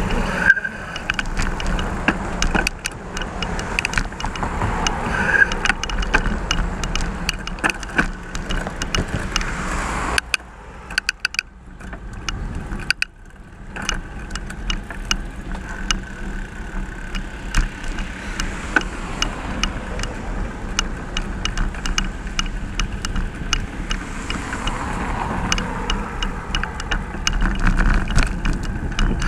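Road traffic and riding noise: a steady rumble with frequent short clicks and rattles, easing off for a few seconds about ten seconds in before building again.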